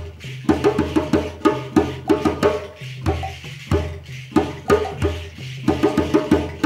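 Djembe with bass drum and shekere playing an interlocking polyrhythmic pattern, the sharp hand strokes coming in quick clusters over repeating low drum tones.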